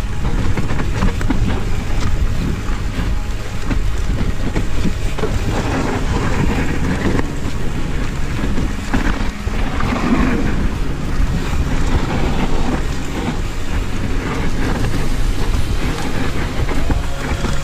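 Wind buffeting a helmet-mounted camera's microphone, over the continuous rumble and rattle of a mountain bike's tyres and frame on a dirt trail at speed.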